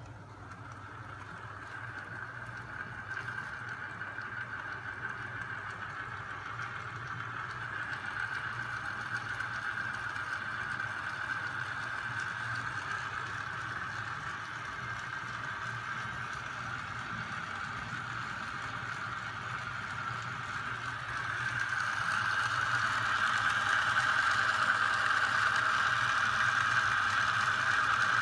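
Homemade magnet-crankshaft machine running under its 12 V DC electric motor: a steady whir over a low hum from the motor and the spinning crankshafts and flywheel, growing gradually louder and stepping up about three-quarters of the way through.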